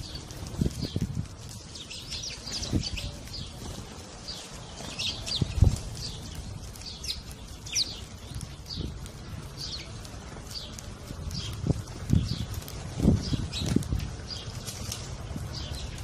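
A flock of house sparrows chirping, with many short, quick chirps overlapping. Wings flutter and a few low thumps come from birds landing and taking off around the feeding spot.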